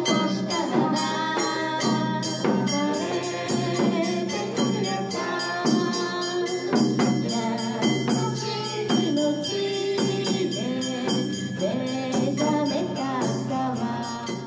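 Small acoustic folk group playing live: a strummed acoustic guitar in a steady rhythm and a voice singing, over a steady low drone. The music cuts off suddenly at the end.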